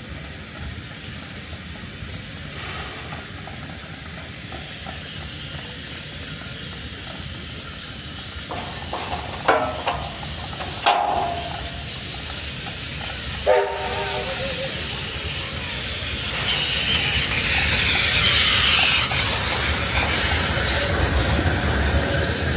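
Steam locomotive 3001 standing in steam: a steady hiss of escaping steam, two short sharp sounds around 9 to 11 seconds in, a brief whistle toot at about 13 seconds, then the steam hiss swelling much louder from about 16 seconds on.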